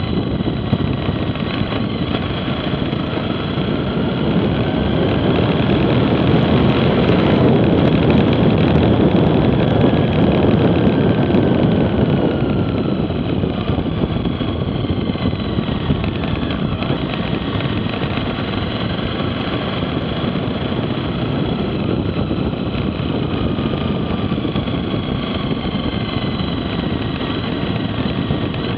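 Motorcycle engine running under way, with road and wind noise. The engine note slowly rises and falls with the throttle and grows louder for several seconds about a quarter of the way in.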